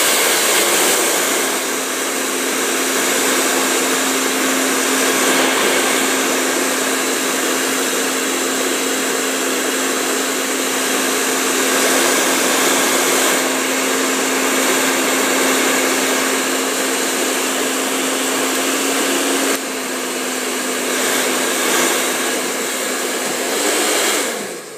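Blow dryer running steadily with a constant hum under its rush of air, slightly quieter for the last few seconds. Near the end it is switched off and its motor winds down.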